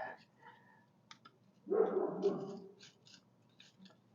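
A screwdriver being handled against metal: scattered light clicks and ticks, with one short scrape a little under two seconds in.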